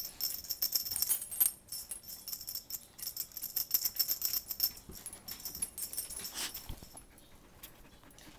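A small jingle bell jingling in two shaken spells, about a second and a half at the start and again a few seconds in, then dying away.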